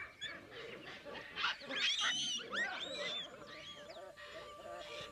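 A baboon troop calling: many overlapping shrill, arching calls and screams in the first few seconds. From about three and a half seconds in, soft music with long held notes fades in beneath.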